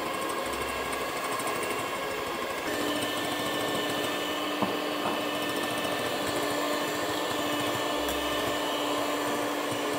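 Moulinex electric hand mixer running steadily, its beaters whipping egg whites and sugar into meringue in a glass bowl. About two and a half seconds in, its motor tone shifts to a new steady pitch.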